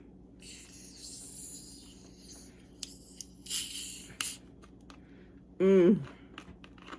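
A bottle or can of Canada Dry Black Cherry soda is handled and opened with a short fizzing hiss about three and a half seconds in, with a few small clicks around it. A brief, loud voice sound comes about a second later.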